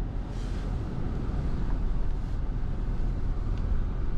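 Truck engine running steadily with a low rumble, heard from inside the cab while the truck backs up.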